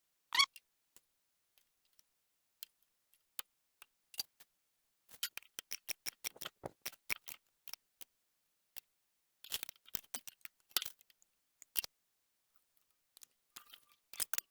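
Scattered light clicks and metallic taps, in bunches about five and ten seconds in, some with a faint high ring: steel hydraulic tubing and its fittings being handled and fitted.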